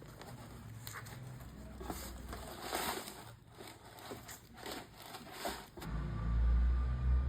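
Scraping, crinkling and clicking of packaging or a device being handled, irregular and uneven. About six seconds in, a loud deep rumble takes over.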